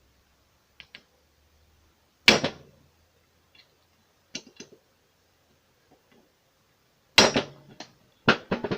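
Hammer blows on a hand impact screwdriver, loosening tight flathead crankcase screws on a Puch E50 moped engine: sharp metallic strikes. Two heavy blows come about five seconds apart, with a pair of lighter knocks between them and a quick run of four strikes near the end.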